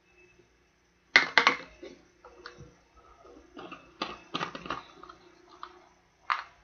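A few short knocks and clicks, two quick clusters about a second in and about four seconds in, and one more near the end.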